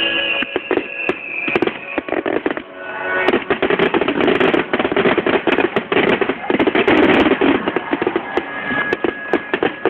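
Aerial fireworks shells bursting, with sharp bangs and dense, rapid crackling from crackling-star shells that thickens about three seconds in and keeps going.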